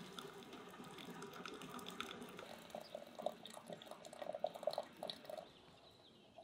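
Hot water running from a samovar's tap into a glass teapot of loose tea, turning to short, irregular drips partway through and stopping about five and a half seconds in.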